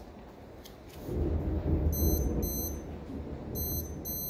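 Lightning detector beeping twice, then twice again: four short high electronic beeps in two pairs, each pair the detector's signal of a lightning strike within 15 miles. Under the beeps a loud low rumble rises about a second in and sits over a steady hiss of heavy rain.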